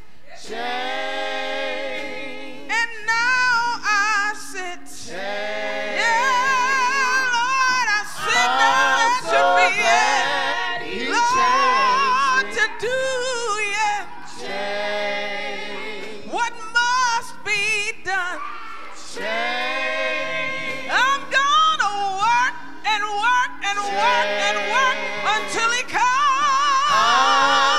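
Church praise team singing a gospel song into microphones, women's and men's voices together, with wavering held notes.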